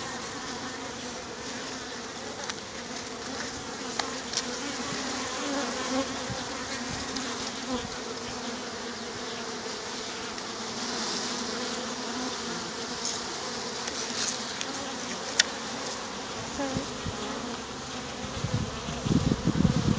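A mass of honeybees buzzing steadily as a package colony is hived, with a few faint clicks from handling. Louder low bursts come in near the end.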